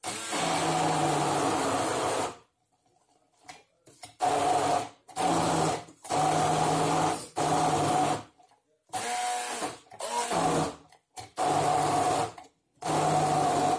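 Hand-held stick blender running in short pulses, about eight bursts of a second or two each with brief stops between, blending horseradish root and tomatoes in a tall beaker to grind them finer.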